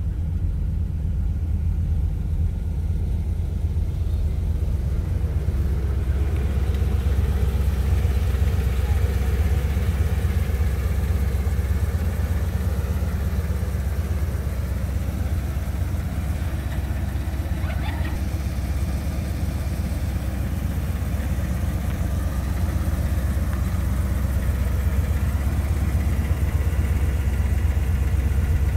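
1981 Corvette C3's 350 cu in V8 idling with a steady low rumble.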